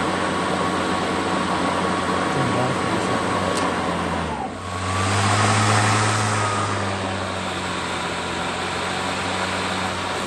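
Greenworks Pro 80V brushless cordless lawn mower running, its motor and blade giving a steady whir. About halfway through the sound dips briefly, then the mower runs louder with a deeper hum as it is pushed through grass.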